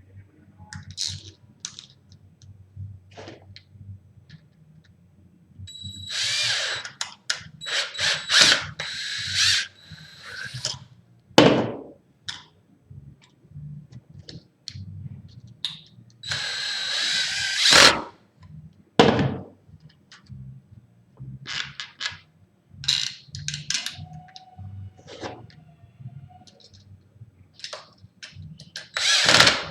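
Cordless drill/driver running in two main spurts, driving the long mounting screws that hold the deadbolt together, with clicks and knocks from the lock hardware being handled between the spurts.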